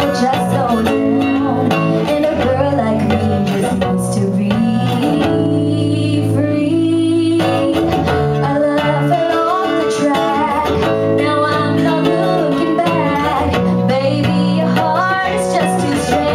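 A woman singing live into a microphone, accompanied by acoustic guitar.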